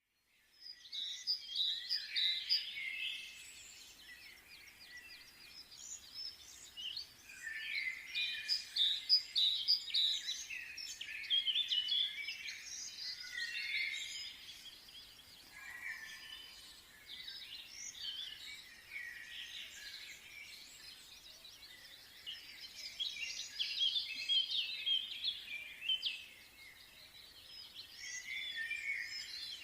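Many small birds chirping and twittering together in a busy, overlapping chorus of short high calls. It swells and eases off in bouts, busiest around 7 to 14 seconds and again around 23 to 26 seconds.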